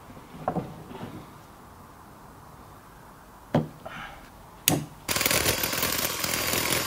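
A power drill with a masonry bit boring into the mortar of a brick wall; it starts loud about five seconds in and runs on steadily. Before it, a few light clicks of fittings being handled.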